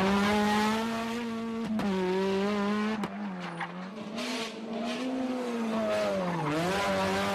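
Rally car engines running hard as the cars pass on a special stage. The engine note holds high, then sags and climbs again twice, with gear changes and lifts of the throttle, the second dip deeper near the end.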